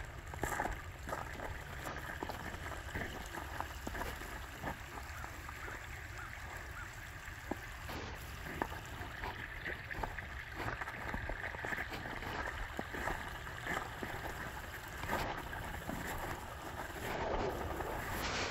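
Footsteps on ice and snow, a run of short, irregular crunches over a steady background rush.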